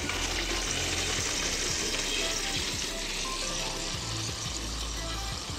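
Garden-hose water rushing through an adapter into a 2-liter plastic bottle, a steady hiss, as it drives the bottle's air out into a balloon. Background music plays along.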